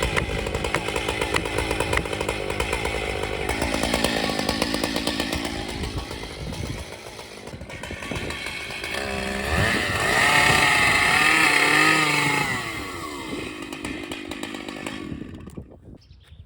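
Two-stroke chainsaw running: the engine note settles lower about halfway through, then revs up to a loud high pitch, winds back down, and cuts off sharply near the end.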